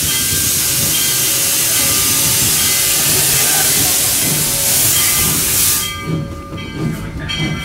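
Steam locomotive venting steam with a loud, steady hiss that cuts off suddenly about six seconds in, leaving a lower mechanical rumble.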